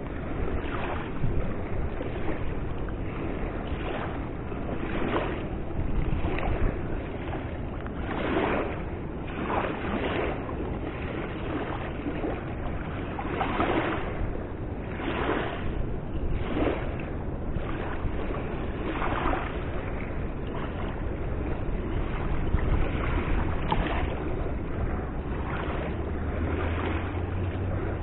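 Steady rushing noise of river water, with wind on the microphone swelling and fading every second or so.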